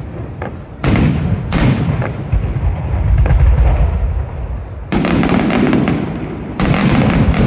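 Aerial fireworks bursting in a rapid series: sudden loud booms about a second in, again half a second later, then near five and six and a half seconds, each trailing off in a long low rumble. The later bursts come with a dense crackle.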